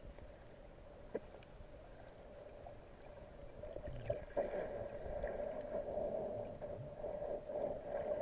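Muffled underwater noise picked up by a camera held below the surface in shallow water: a steady hum that grows louder about halfway through, with a few faint clicks and knocks.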